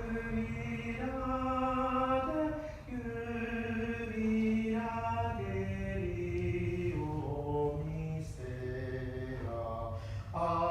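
A group of seminar participants singing a slow melody unaccompanied. It moves in steps from one held note to the next, as in movable-do solfège practice.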